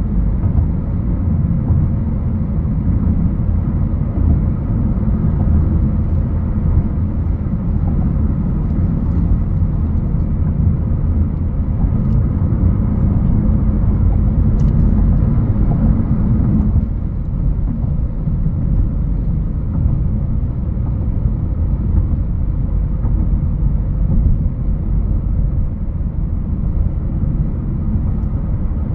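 Road and engine noise of a 2021 Honda HR-V Sport AWD being driven: a steady low rumble from its 1.8-litre four-cylinder and the tyres, easing a little about two-thirds of the way in.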